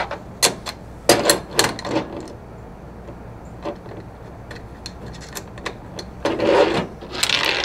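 Small steel nuts and screws being threaded and handled by hand on a gearbox bracket: scattered sharp metal clicks and taps, then two longer rubbing, scraping sounds near the end.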